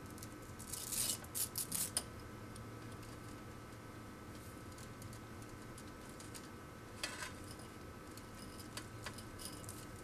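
Handled data cables clicking and scratching against the plastic form-up guide of a patch panel as they are pressed into place. There are bunches of sharp clicks about a second in and again around seven seconds, with a few lighter ticks near the end, over a steady low hum.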